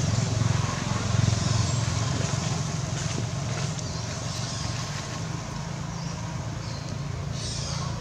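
Steady low engine hum, easing a little partway through, with a brief high hiss near the end.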